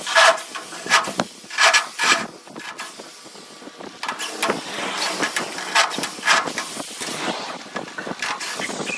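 Arc welding electrode crackling and hissing in uneven bursts, easing off for a moment about two and a half seconds in before a steadier crackle resumes.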